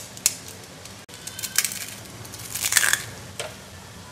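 A crisp, freshly fried rice-flour chakli being broken and crushed between the fingers: a run of dry crackling crunches, loudest near three seconds in. The crunch shows how crisp it has fried.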